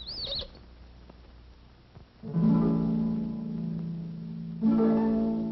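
Old orchestral film score music: a brief high wavering glide at the start, then a quiet gap, then sustained plucked-string and harp chords entering about two seconds in, with a louder second chord near the end.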